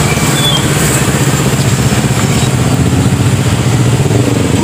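Car engines running at low revs as cars drive slowly past one after another: a steady engine sound with a fine low pulsing.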